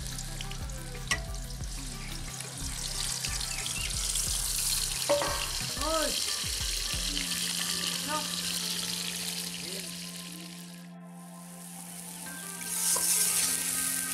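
Ground onion, garlic, ginger and red chilli paste sizzling as it fries in hot oil in a metal kadai, a steady hiss that fades briefly and then comes back louder near the end as a spatula stirs it.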